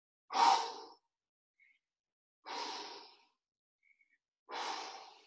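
A man breathing out hard three times, about two seconds apart, while holding a plank: effortful breathing under strain near the end of a one-minute hold.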